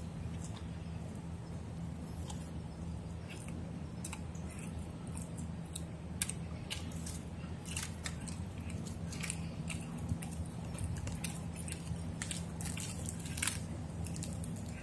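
Chewing and crunching of food at the microphone, with scattered small crisp clicks that get more frequent from about halfway through.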